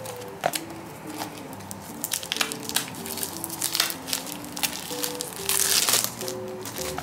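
Clear plastic shrink wrap crinkling and crackling as it is peeled off a paperback comic book, in many quick crackles with a loud dense burst about five and a half seconds in. Soft background music plays underneath.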